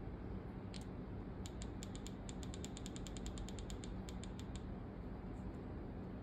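Plastic buttons on an e-bike's handlebar display control pad clicking as they are pressed: two single clicks, then a fast even run of about two dozen presses over some three seconds as the settings menu is stepped through parameter by parameter.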